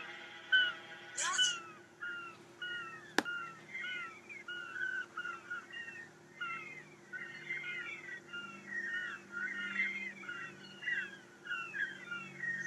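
Many short chirping bird calls, sparse at first and growing busier and overlapping, with a single sharp click about three seconds in.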